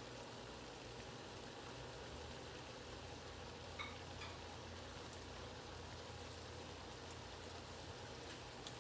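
Pan of chicken igado simmering near the end of cooking, a faint, steady sizzling hiss. A small click about four seconds in.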